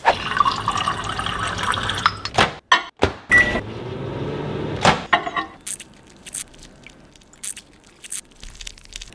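Water running into a drinking glass for about two seconds. Then a microwave oven's door and buttons click, it gives a short beep and hums briefly while it heats the water. Near the end come light clicks of a spoon against a cut lime as it is squeezed over the glass.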